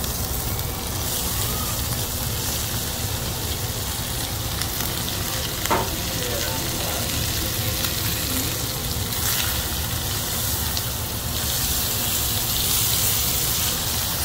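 Chopped octopus sizzling as it fries in butter and olive oil with onions and garlic, stirred around the pan with a wooden spoon. One short knock about six seconds in.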